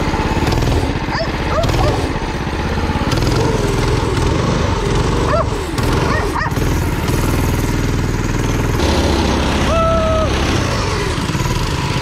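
Predator 212 single-cylinder four-stroke engine on a go-kart, fitted with a stage one kit, running steadily with an even pulsing exhaust, its level shifting a couple of times as the throttle changes.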